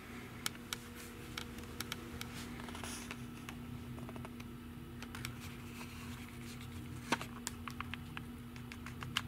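Quiet indoor room tone with a steady low hum and scattered light clicks and ticks from a handheld camera being moved and handled.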